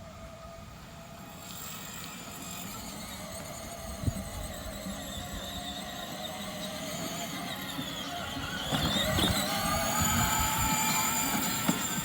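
Electric ride-on toy car's drive motors and gearbox whining as it drives, overdriven by an 18-volt drill battery in place of the stock 12-volt. The whine grows louder about nine seconds in, its pitch dipping and then rising.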